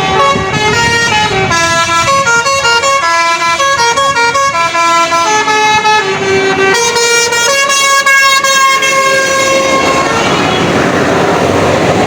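Basuri telolet musical bus horn playing a tune of many short stepped notes, the pitch changing several times a second. Near the end the tune stops and an even rushing noise of the bus driving off takes over.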